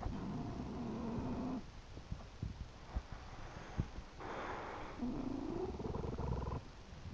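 English bulldog snoring in its sleep: a long snore of about a second and a half at the start, a breathy exhale about four seconds in, then a second long snore that rises in pitch. A few short clicks fall between the snores.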